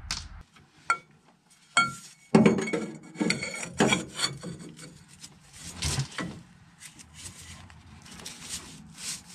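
Steel tools clinking and scraping against a brake caliper as a socket and long breaker bar are fitted to its tight bolts. Two short ringing clinks come first, then an irregular run of metal clatter and scraping.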